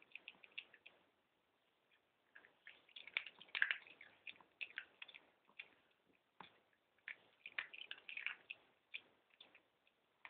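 A chihuahua chewing and crunching his diet food, faint, in irregular clusters of short crunchy clicks with brief pauses between mouthfuls.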